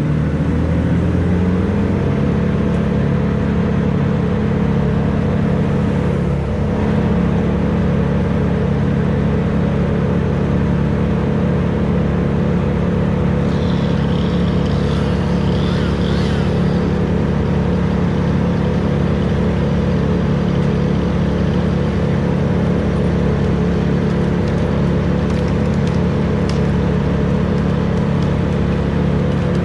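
A large engine speeds up over the first couple of seconds, then runs steadily at high revs. A brief higher-pitched sound comes about halfway through.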